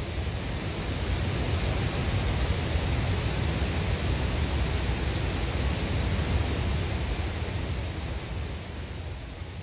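A steady rushing hiss of noise over a deep rumble, part of a performance soundtrack. It swells up over the first couple of seconds and fades slowly near the end.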